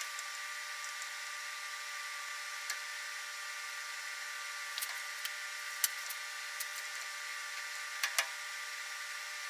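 A steady hum of several held tones, with a few faint metallic clicks from a tap and tap handle being worked by hand in a steel part.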